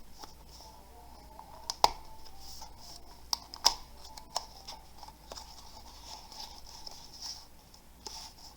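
Light handling sounds: a few sharp clicks and taps at irregular intervals, two of them louder than the rest, over a faint steady hiss, typical of a keyboard and its packaging being taken out of the box.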